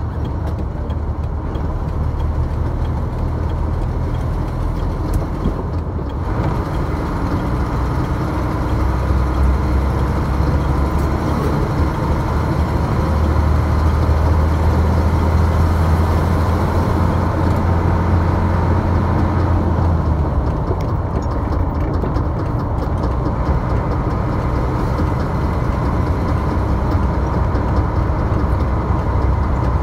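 Steady engine and road noise of a vehicle driving on a highway, a continuous low hum that gets slightly louder about eight seconds in.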